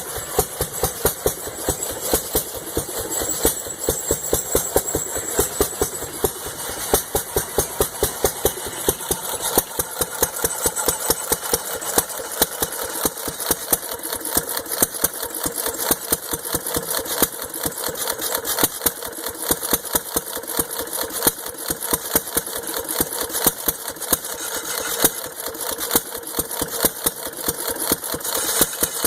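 1 hp Empire hit-and-miss engine running, firing sharp exhaust pops in bunches between stretches of quieter coasting strokes, as its governor holds speed. It is under the load of a South Bend lathe cutting a brake rotor.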